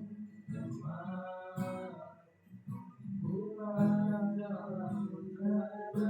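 Music: a song with guitar and a voice singing.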